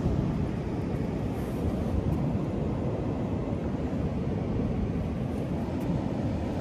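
Cimatti Bulk motorcycle engine running with a steady low rumble.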